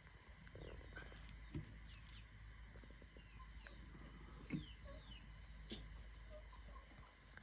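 A small bird calls twice, each a quick high chirp falling in pitch, near the start and again about four and a half seconds later, over faint outdoor quiet with a few soft clicks.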